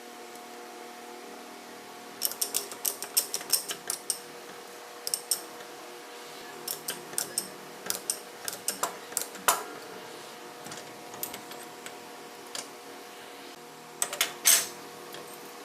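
Sharp metallic clicks and clinks of hand tools and engine parts being handled during a motorcycle engine teardown. They come in scattered clusters, the loudest about nine and a half seconds in and another group near the end.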